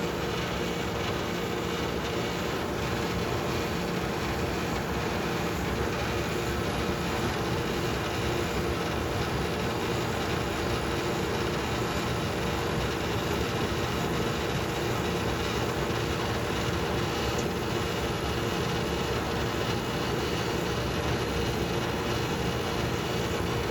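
A 1987 dehumidifier running steadily: the even rush of air from its universal electric fan motor over a steady hum from its refrigeration compressor.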